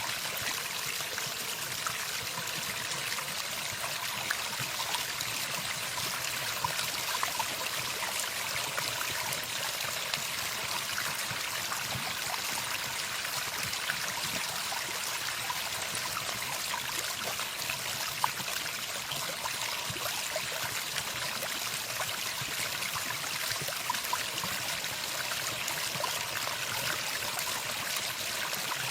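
Running water: a steady stream trickling and splashing, with small droplet ticks scattered through it.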